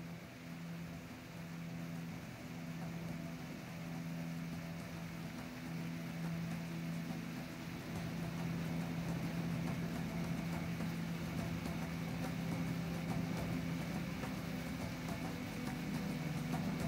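Outboard motor of a pirogue running steadily at cruising speed, a low even hum that grows louder over the first half and then holds steady.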